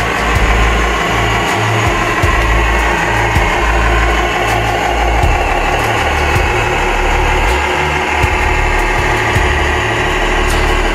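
A radio-controlled construction machine's engine sound, idling steadily.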